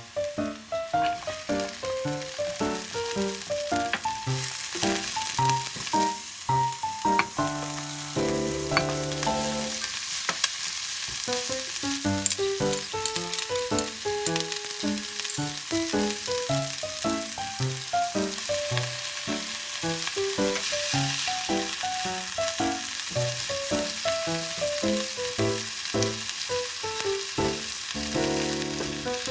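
Food sizzling steadily as it is stir-fried in a pan for stir-fried udon, under background music.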